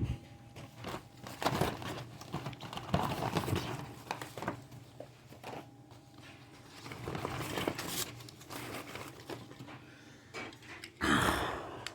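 Die-cast toy cars being handled and set down: irregular small clicks, clinks and rustling, with a louder rustle near the end.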